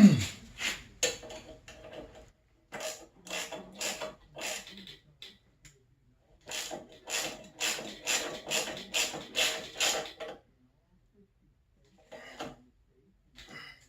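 Hand ratchet with a 3/8-inch drive and deep-well socket clicking in short runs, about three clicks a second, as a lock nut is run down and tightened. A brief falling tone sounds right at the start.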